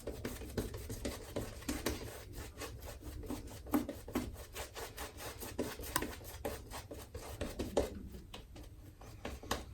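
Shaving brush bristles rubbing and scrubbing in quick, irregular strokes, working up lather from shaving soap.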